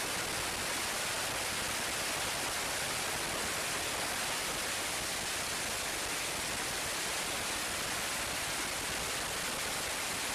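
Steady rushing noise of jet fighters in flight, an even, unchanging rush with no rise or fall in pitch.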